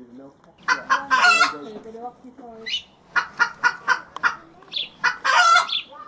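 Male domestic turkeys gobbling in full strutting display: rapid rattling bursts of short notes, loudest about a second in and again near the end, with a quicker string of notes in the middle.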